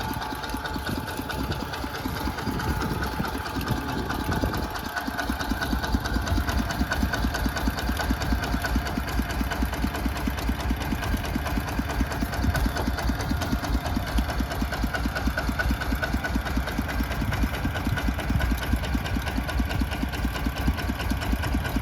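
Mini tractor engine running with a rapid, even chugging, a little quieter at first and louder from about five seconds in.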